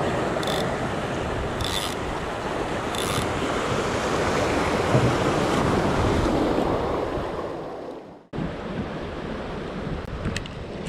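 Swell surging and washing over shoreline rocks, with wind on the microphone, fading out about eight seconds in; then a softer steady hiss with a few faint ticks.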